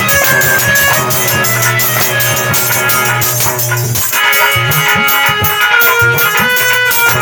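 Instrumental music with a fast, steady drum beat under held melody notes. About four seconds in, the low steady part drops away and a higher melody comes in.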